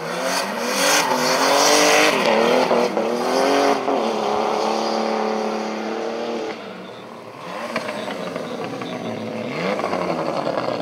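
BMW E46 rally car's engine revving hard through a dirt-track corner, its pitch repeatedly climbing and dropping as the driver works the throttle and gears. It fades briefly about two-thirds of the way through, then revs up again as the car comes past close by.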